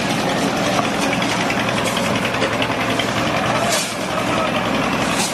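Engine of a drum concrete mixer running steadily while it mixes concrete.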